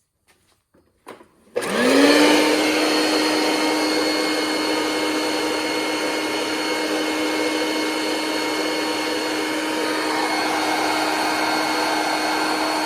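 1983 Kenmore upright vacuum cleaner switched on after a few clicks: its motor spins up within half a second to a steady tone over a loud rush of air, then runs evenly.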